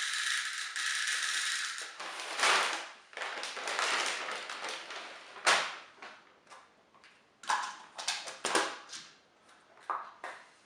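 Small objects being handled on a work surface: a steady hiss for about the first two seconds, then a scattered run of sharp taps and clicks.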